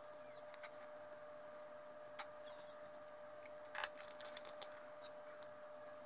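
Small clicks and scrapes of hard 3D-printed plastic being trimmed and fitted together by hand, with a cluster of sharper clicks about four seconds in.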